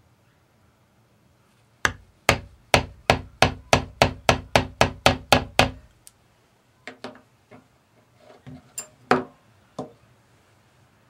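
A mallet striking a steel design stamp on a metal earring blank laid on a steel bench block: about a dozen quick, even blows, roughly three a second. After them come a few lighter, irregular knocks.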